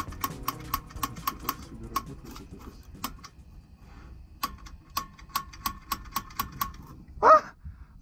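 Piezo igniter of a portable gas camping stove clicking repeatedly, about four sharp clicks a second with a short metallic ring, in two runs with a pause between: attempts to light the burner.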